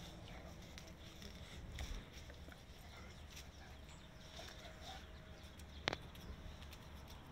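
Faint scuffling of two dogs playing, paws and claws shifting on a concrete floor and sofa, with one sharp click about six seconds in.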